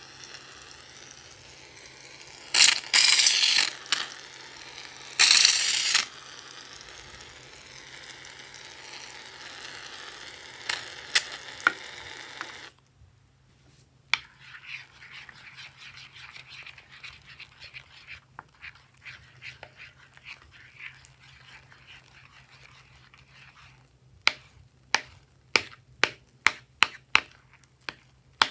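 Aerosol can of shaving foam hissing as foam is sprayed out, with two louder spurts, until it cuts off suddenly about two-thirds through. Then fingers squish and rub the foam into the slime, with a quick run of wet pops near the end.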